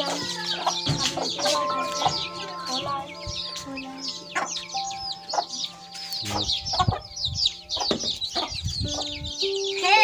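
A brood of chicks peeping continuously in rapid, high chirps, over background music of held notes.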